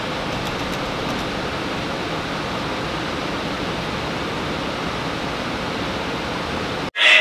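A steady, even rushing noise with no distinct events. It cuts off suddenly near the end, and choral music starts.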